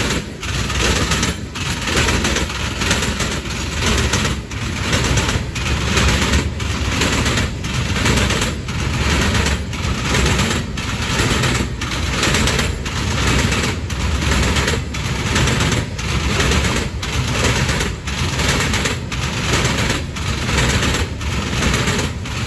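Freight train of gondolas and hopper cars rolling past close by, its steel wheels clacking on the track in a steady rhythm, the clacks bunching into a louder group about every two seconds as each car's wheel sets go by.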